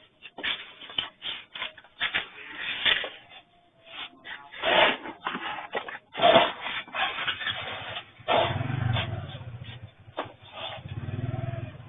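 Store shelving and merchandise rattling and clattering in irregular knocks during strong earthquake shaking, with a low rumble joining about eight seconds in.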